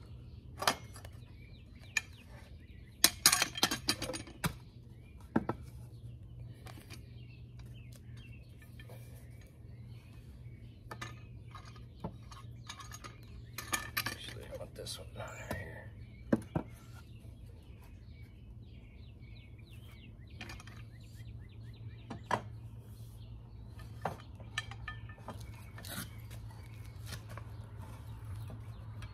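Irregular metal clinks and knocks from steel pipe clamps and wrought-iron balusters being handled and fitted against a wooden frame, with a quick cluster about three seconds in and another around fourteen seconds. A steady low hum runs underneath.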